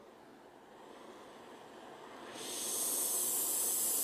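Oxy-acetylene torch with a rosebud heating tip burning: a soft low rustle at first, then about two seconds in a steady hiss swells up and holds as more oxygen is fed to the flame.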